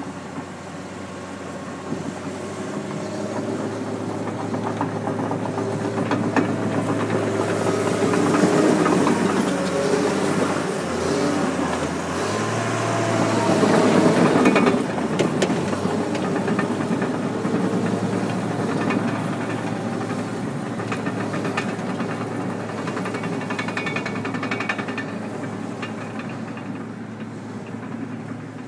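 John Deere 750J crawler dozer's diesel engine running and working, with a dense metallic clatter over it that fits the tracks. It swells to its loudest about 8 and 14 seconds in, the engine note shifting near the middle, then eases off.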